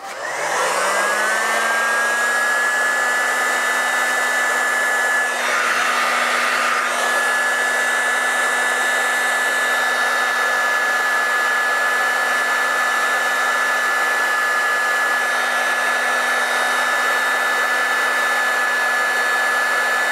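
Electric heat gun (a paint stripper) running: its fan motor spins up with a rising whine in the first second, then blows steadily with an even whine and rush of air while shrinking heat-shrink sleeving over wires.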